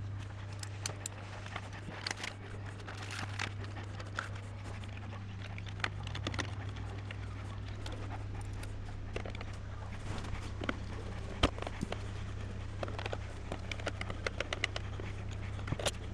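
Small clicks, taps and scrapes of computer parts being handled and fitted by hand, scattered irregularly, over a steady low hum.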